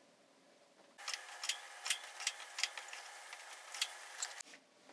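Brother 260 bulky knitting machine with its ribber: a run of faint, irregular clicks, about three or four a second, as the metal needles on the beds are handled.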